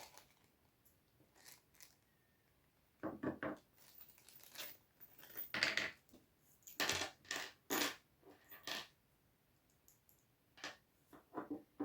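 Small packaging being unwrapped by hand: faint, scattered bursts of crinkling and tearing as a mini screwdriver and its screws are taken out of their wrapping.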